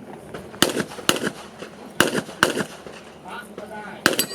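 Handgun shots on a practical shooting (IPSC) range, fired in quick pairs: two pairs about a second apart early on, then a single shot near the end.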